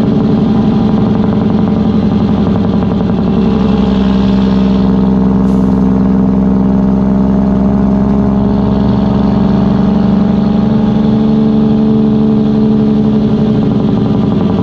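Freightliner Columbia's Detroit Diesel engine running steadily, a deep even engine note.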